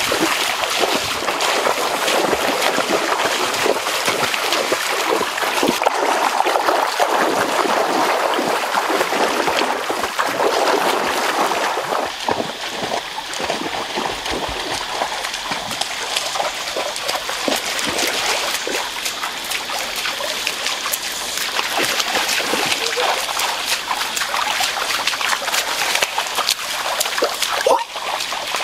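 Shallow stream trickling and flowing, with scattered splashes of feet wading through the water.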